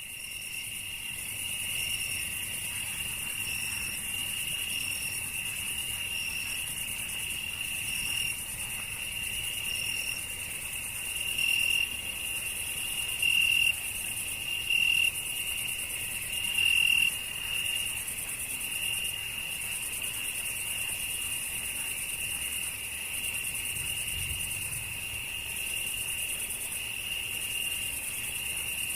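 Insects calling: a steady, high shrill trill, with a fainter chirp above it that repeats every second or two and a few brief louder swells around the middle.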